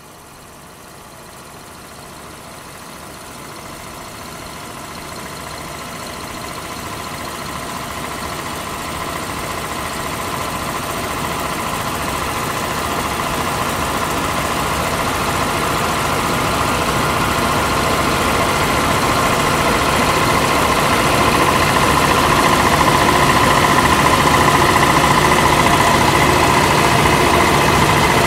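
Oil-well pumpjack machinery running: a steady mechanical drone with a faint whine in it, slowly fading up from faint to loud.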